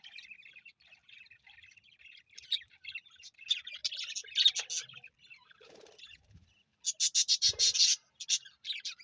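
Budgerigars chirping and chattering in short rapid calls, with a loud burst of harsh, rapid chirps near the end.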